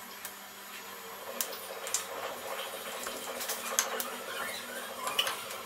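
Wooden rolling pin rolling out stiff dough on a granite counter: a faint, even rubbing and rolling sound with scattered light clicks.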